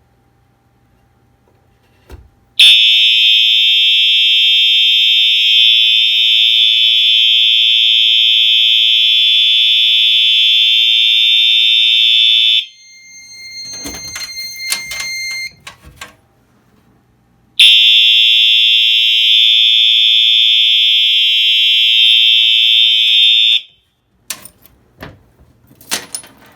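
Fire alarm horn sounding a steady high-pitched tone in California code, the signal of a fire alarm system in alarm set off from a smoke detector: about ten seconds on, five seconds off, then on again for about six seconds. Scattered clicks and knocks fall in the gap and just after the second burst.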